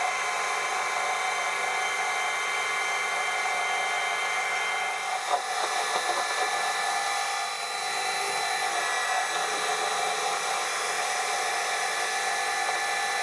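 Manual metal lathe running steadily, its four-jaw chuck spinning a rusty steel bar while a carbide insert faces off the bar's end. The lathe's drive gives an even whine, with a few scrapes from the cut around the middle.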